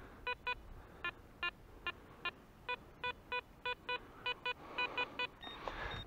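Metal detector giving short, same-pitched beeps, irregular at roughly three a second and sometimes in quick pairs, as it signals metal in the beach sand.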